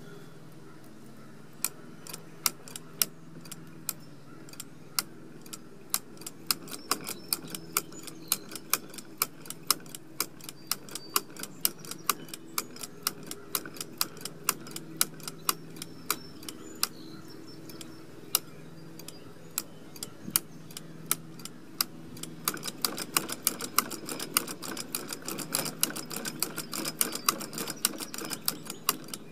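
Antique 1870s Beckwith MKIV hand-crank sewing machine being cranked, its mechanism clicking sharply. The clicks start about a second and a half in, come irregularly at first, and run much faster and denser for the last several seconds.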